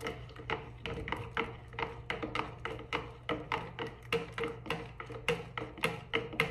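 Black plastic stirrer knocking against the inside of a plastic measuring jug while caustic soda solution is stirred, in a quick, even run of clicks, about four or five a second.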